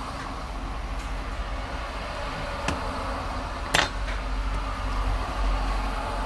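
Steady low rumble of passing motorway traffic, with a few sharp clicks, the loudest near the middle.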